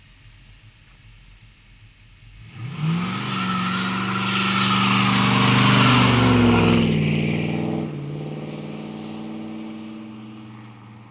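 A 1969 Dodge Super Bee's V8 accelerating hard past at close range. The engine revs up sharply about two and a half seconds in, is loudest as the car passes, drops off near eight seconds in, and fades away down the road.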